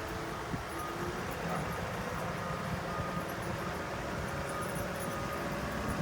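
An engine running steadily at low revs, with a faint, thin tone coming and going above the hum.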